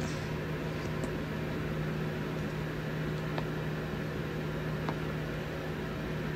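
Steady low hum over an even hiss of room background noise, with three faint clicks.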